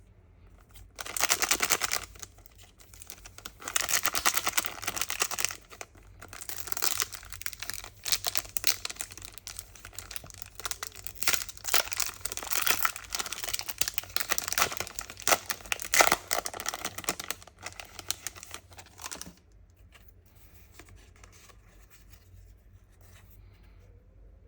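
Foil Pokémon card booster pack wrappers being torn open and crinkled in repeated bursts of rustling and ripping, stopping about nineteen seconds in.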